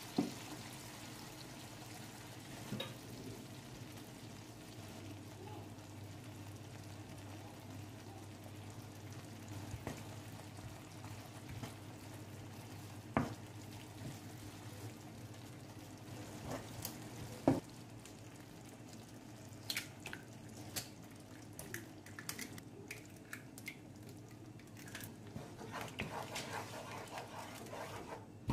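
Milk and sliced onions simmering in a nonstick pan with a steady soft sizzle, broken by an occasional knock. A wooden spoon stirs through the mixture, with short clicks and scrapes against the pan coming thicker in the last third.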